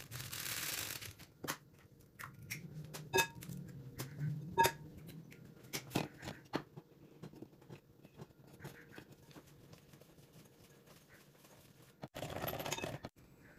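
Eggs cracked against the rim of a glass mixing bowl: a few sharp taps, some with a short glassy ring, then faint clinks and scrapes in the bowl. A brief loud rushing noise about a second long comes near the end.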